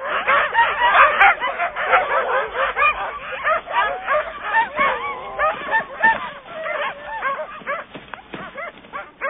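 A team of sled dogs barking and yelping all at once in a dense, overlapping chorus, easing slightly in the second half.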